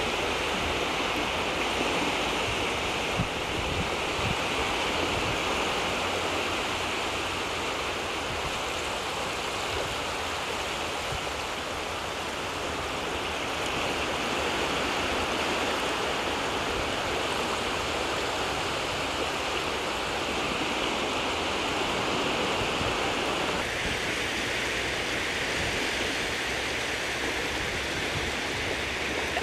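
Steady rushing wash of shallow sea water at the water's edge, with no distinct waves breaking; its tone shifts slightly about four-fifths of the way through.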